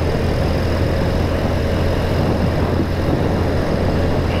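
BMW R65's air-cooled 650 cc flat-twin boxer engine running steadily while the motorcycle is ridden, a constant low drone with no change in pitch.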